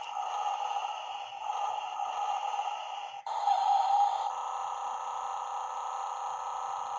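Road Rippers Rammunition toy monster truck playing its electronic engine sound effects through its small built-in speaker, tinny with no deep bass. The sound switches abruptly to a new clip about three seconds in.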